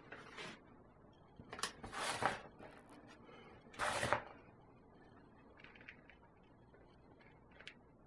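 A spoon scooping icing sugar from a paper bag and tipping it into a plastic mixing bowl: three short rustling scrapes in the first half, then a few faint light taps.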